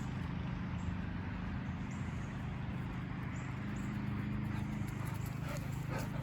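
A dog's feet pattering on the ground as she runs after a thrown toy, with a few light footfall knocks, more of them near the end. A steady low hum runs underneath.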